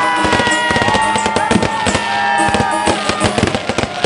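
Fireworks bursting overhead in a rapid, irregular string of bangs and crackles, with loud music holding long notes underneath.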